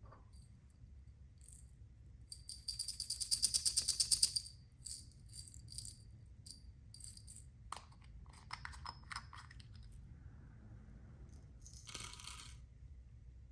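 Small hard objects rattling and clicking in several bursts. The loudest, densest rattle comes about two to four and a half seconds in, then scattered clicks, then another short rattle near the end.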